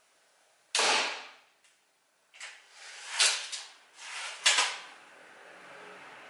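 Mark 3 slingshot rifle firing about a second in: a sharp snap that dies away over about half a second. A few shorter sharp clacks follow between about two and a half and five seconds in.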